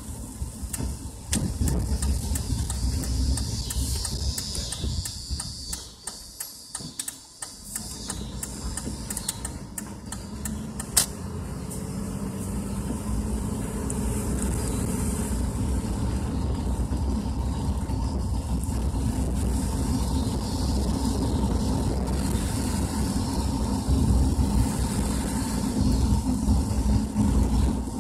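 Car interior while driving on a wet road: steady engine and tyre rumble with road hiss. Scattered taps and clicks come through the first ten seconds or so, ending in one sharp click about eleven seconds in. The rumble then grows louder and steadier.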